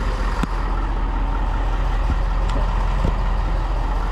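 Truck engine idling steadily with the vehicle held stopped, with a few faint knocks over it.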